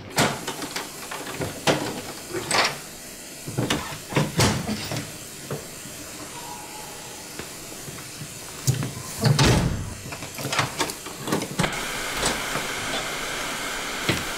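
Scattered knocks and a heavy thud, then, a little before the end, a steady hiss of steam sets in and keeps going.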